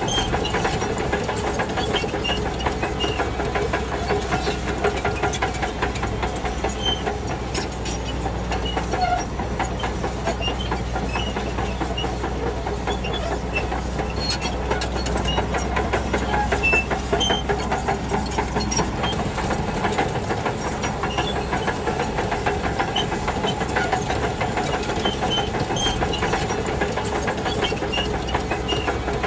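Shantui DH17C2 crawler bulldozer's diesel engine running steadily as it works, with the clatter of its steel tracks and scattered short high squeaks. The deep rumble eases about twenty seconds in.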